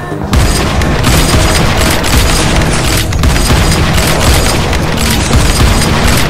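Loud cinematic background music with heavy booming low hits; a big hit comes in about a third of a second in.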